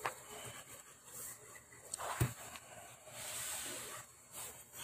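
Faint handling noise: a few light knocks and some scraping as a VGA cable's plastic plug is fumbled against the back panel of a TV while being lined up with its port.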